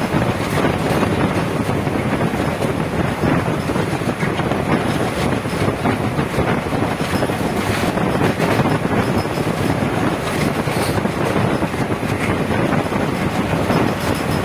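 Passenger train running at speed, heard from on board: a steady rumble of wheels on the track mixed with wind rushing over the microphone.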